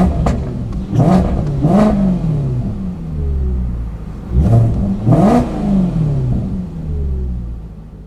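Maserati GranTurismo's naturally aspirated 4.2-litre V8 revved while standing still. There are two pairs of quick throttle blips, one pair about a second in and one about halfway through, each rising sharply and dropping back toward idle. The engine sound then fades away near the end.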